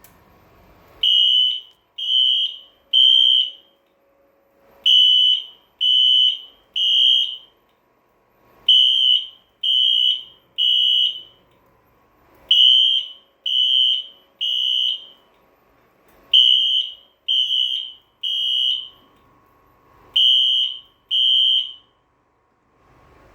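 Wheelock ET-1080 electronic fire alarm horn strobe on a Siemens FC922 system sounding the temporal-three evacuation pattern: three high-pitched horn blasts, a pause, then three more, repeating throughout. It is pretty loud even on its low volume setting.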